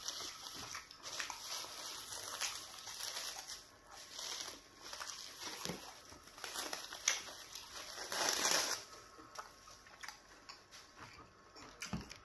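Thin plastic wrapping crinkling and rustling in uneven spurts as it is peeled off a ball of pounded yam fufu, loudest a little past eight seconds in.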